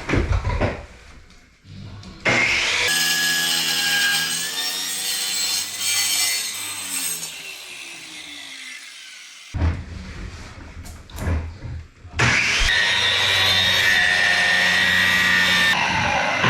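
Power saw cutting wood with a blade that makes smoke and is called a junk blade. A cut runs for several seconds, then the blade winds down with a falling whine. A few knocks follow, then a second cut starts and carries on.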